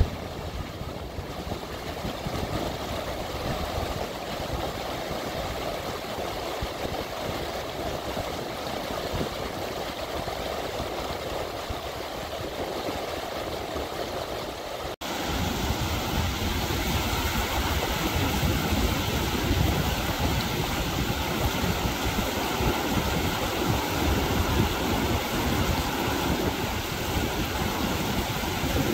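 River water rushing over a stony bed in shallow rapids: a steady noise of flowing water. About halfway through it cuts abruptly to a louder, closer sound with more deep low end.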